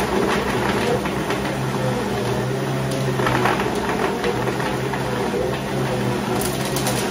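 Klarstein stand blender running steadily at high speed, crushing frozen fruit, with the frozen pieces clattering loudly against the jug.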